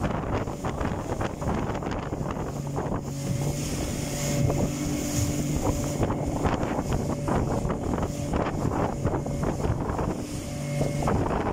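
A small motorboat's engine running steadily under way, its hum clearest a few seconds in and again near the end, with wind buffeting the microphone.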